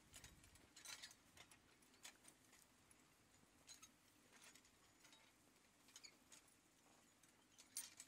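Very faint, irregular clicks and clinks of a horse pulling an iron potato plow, its harness chains and the plow's metal parts rattling as it moves.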